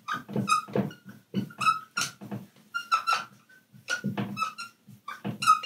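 Dry-erase marker squeaking on a whiteboard in quick short strokes as words are written, a few strokes a second with brief pauses between them.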